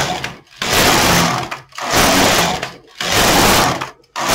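Domestic knitting machine carriage being pushed back and forth across the needle bed, knitting rows: about four passes, each a noisy mechanical run of roughly a second, with a brief pause between them as the carriage changes direction.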